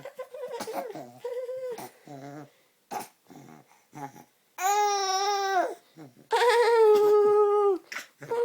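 Baby vocalizing: a run of short breathy sounds and a few clicks, then two long, even-pitched squeals of about a second and a half each, starting about four and a half seconds in.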